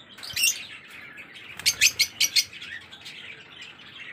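Lovebirds chirping: a short chirp just after the start, then a quick run of about five sharp, high-pitched chirps around two seconds in.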